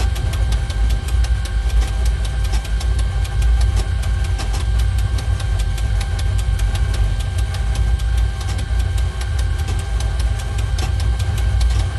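Caravelle III flight simulator's engine and takeoff-roll sound at full takeoff power during the ground run: a steady deep rumble with a thin steady whine above it and a fast rattle of clicks.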